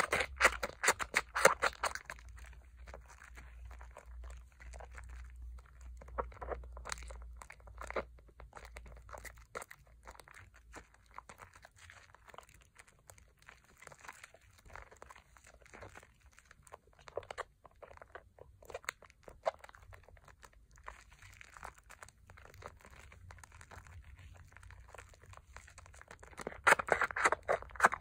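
Hands squeezing and kneading thick Pears soap lather over a bowl of soapy water: wet squishing with the fine crackle of bursting foam bubbles. It is louder in the first two seconds and again near the end, and softer in between.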